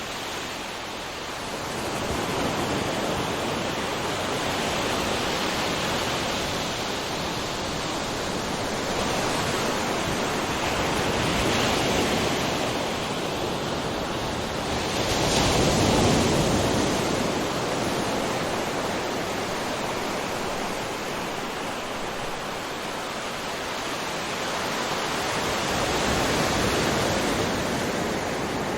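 Ocean waves breaking in a continuous wash of surf, swelling and easing every few seconds. The biggest wave crashes a little past halfway through.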